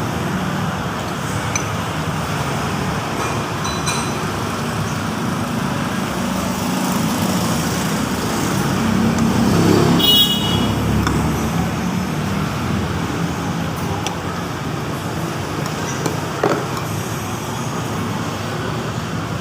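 Steady road traffic noise that swells as a vehicle passes about halfway through, with a brief high-pitched tone at the loudest point.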